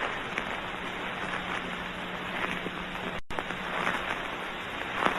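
Steady hiss and faint crackle of an early optical film soundtrack, with a low steady hum under it. The sound cuts out completely for a split second about three seconds in, like a splice in the print.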